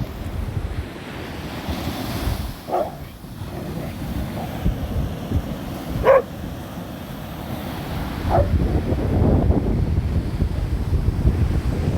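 Three short cat yowls, the loudest about six seconds in, over steady wind noise on the microphone: cats scuffling in what could be a fight or play.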